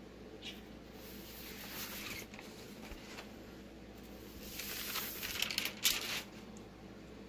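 Parchment paper and sublimation transfer paper crinkling and rustling as they are handled on a freshly pressed t-shirt, in two stretches, the second about five seconds in and louder with a few sharp crackles.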